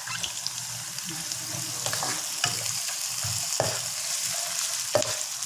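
Onions with garlic, ginger and green chilli sizzling in hot oil and ghee in a pan, being stirred, with a few sharp clicks of the stirring utensil against the pan.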